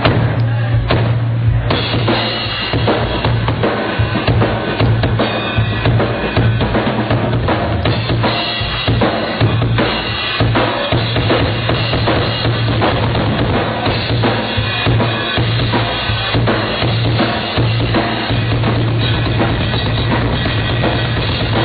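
Rock drum kit played live, with continuous bass drum and snare hits over a steady low drone.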